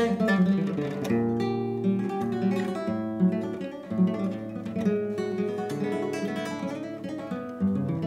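Nylon-string classical guitar played fingerstyle: plucked bass notes held under chords and melody lines, the notes starting and changing in quick succession.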